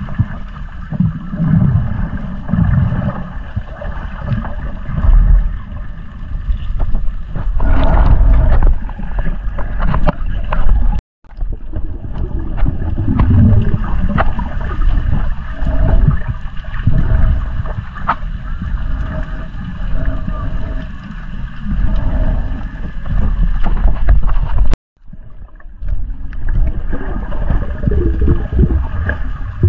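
Muffled underwater sound picked up by a diving camera: a low rumble and sloshing of water, with a steady hum like a boat's motor carried through the water. The sound cuts out briefly twice where the clips are joined.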